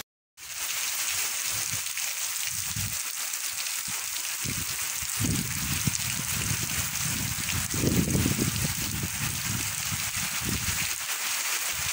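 Heavy rain pouring as a steady hiss, with irregular low rumbling bursts that are loudest about eight seconds in.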